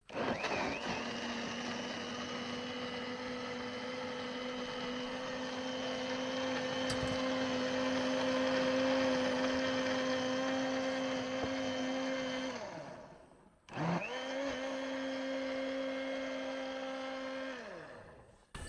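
Electric blender running in two bursts, the first about twelve seconds and the second about four, with a steady motor whine that falls in pitch as it winds down each time it is switched off.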